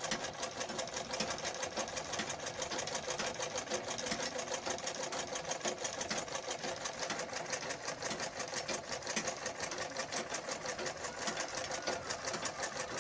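Black domestic sewing machine running steadily, its needle clattering rapidly and evenly as it stitches a hem through cloth.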